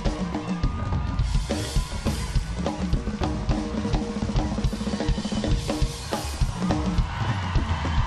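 Live band playing an instrumental dance groove, led by drum kit and hand percussion over bass, with a steady, busy rhythm and no singing.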